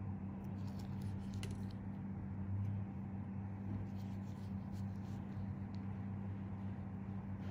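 Steady low hum with a constant faint hiss, and a few faint light ticks about a second in.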